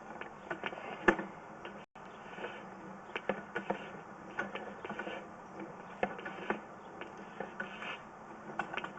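Irregular mechanical clicks and rattles from handled equipment, a few a second, with a sharper knock about a second in.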